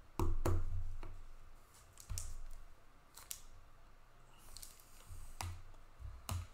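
Hard plastic card cases clacking and tapping as they are picked up, handled and set back down: several sharp clicks and knocks, the loudest just after the start, with a brief rubbing sound around four and a half seconds in.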